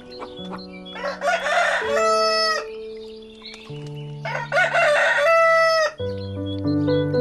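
A rooster crowing twice, each crow about a second and a half long and ending on a drawn-out held note.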